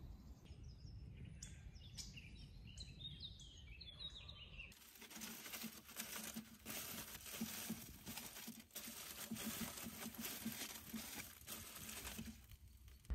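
Small birds chirping for the first few seconds. Then, about five seconds in, aluminium foil crinkles and rustles steadily as hands fold and press it around meat on a grill grate.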